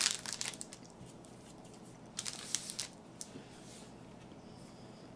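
Plastic food wrapper crinkling as a brownie is set down on it, in two short crackly spells: one right at the start lasting about a second, and another a little after two seconds in.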